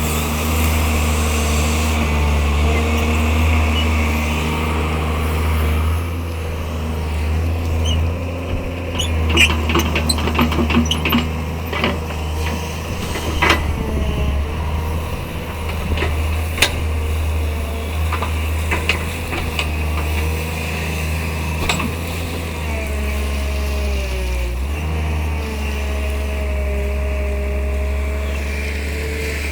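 Tata Hitachi 130 excavator's diesel engine running steadily with a deep rumble, with a cluster of sharp metallic clanks about ten to fourteen seconds in and a few more later. Near the end a whine comes in that dips and rises in pitch.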